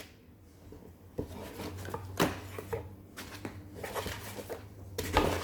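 Hands handling packaging and accessories during an unboxing: scattered light clicks, knocks and rustles, with a cluster of handling noises near the end.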